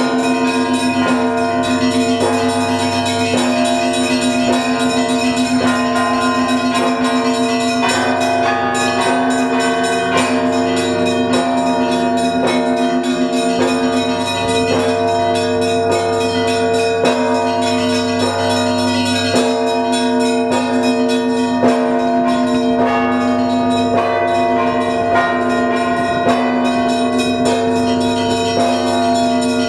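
Russian Orthodox bell ringing from the Trinity-Sergius Lavra belfry: many church bells struck by their clappers in a dense, continuous pattern. Quick strikes of the smaller bells run over the long, sustained tones of the larger ones. This is the Paschal ringing of Bright Week, calling to the evening service.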